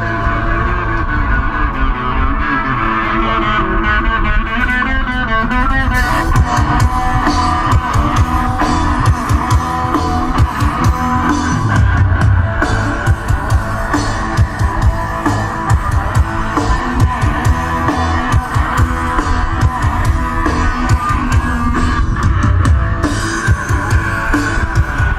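Rock band playing: electric guitar over bass and a drum kit, with the drums coming in hard from about six seconds in.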